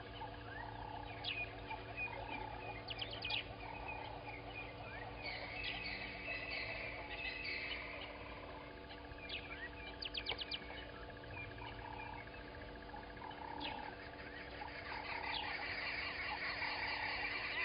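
Wild birds calling at dawn in the bush: short rapid trills, chirps and whistled notes from several birds, growing into a denser chorus near the end.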